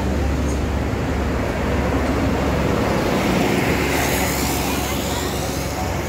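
Diesel coach bus driving past close by. Its low engine rumble gives way to a broad rush of tyre and air noise in the second half as it goes by.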